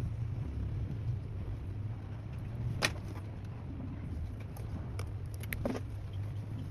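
Steady low hum with a few small, sharp clicks, two of them louder (about three seconds in and near the end), typical of small parts and tools being handled on a phone repair bench.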